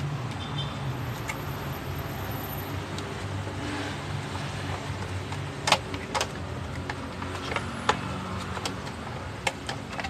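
Plastic clicks and taps from a table fan's parts being fitted by hand: a connector pushed onto the control board and the small swing motor seated in the plastic housing. A few sharp clicks come in the second half over a steady low hum.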